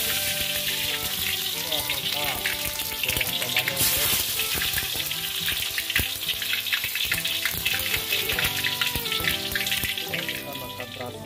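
Tomato halves frying in hot oil in a wok: steady sizzling with many small crackles and pops.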